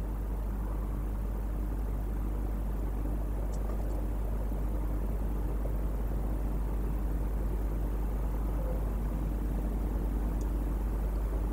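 Steady low rumble with background hiss, unchanging throughout.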